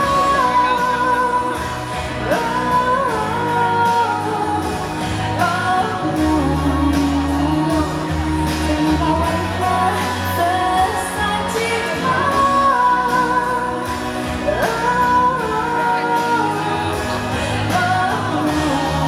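Live pop music: a female singer's voice over band accompaniment with a steady bass and beat.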